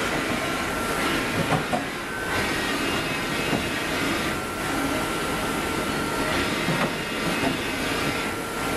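Hardinge Bridgeport VMC 760 XP3 vertical machining centre running, its table traversing back and forth. A steady mechanical running noise with a constant high whine and a few light knocks.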